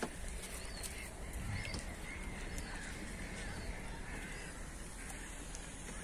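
Birds calling, many short repeated calls over a steady outdoor background hiss.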